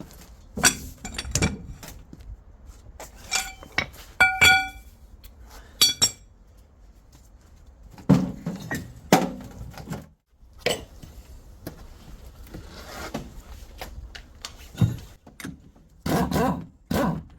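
Steel gearbox parts of a Toyota MMT transmission clinking and knocking together as they are handled, a dozen or so separate knocks. Several of them ring briefly with a clear metallic tone, about four seconds in and again about six seconds in.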